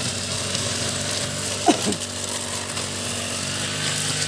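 A small engine running steadily in the background. A short falling cry cuts across it once, a little before the middle.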